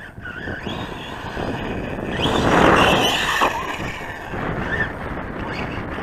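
Losi Lasernut U4 RC truck's electric motor whining up and down in pitch as it is throttled. From about two to three and a half seconds in there is a louder rush of noise, the loudest part.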